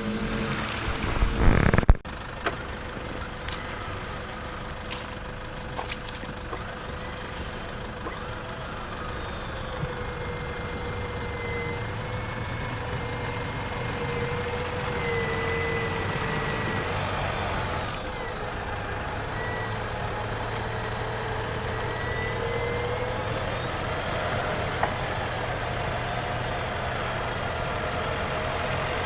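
Off-road vehicle running with a whine that slowly rises and falls in pitch, after a loud burst of noise about a second in.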